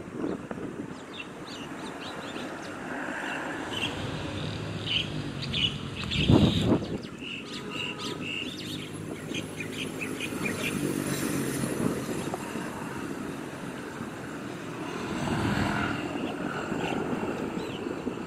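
Road traffic passing with birds chirping, short high chirps repeating through the first half. A brief, louder rush about six seconds in is the loudest moment.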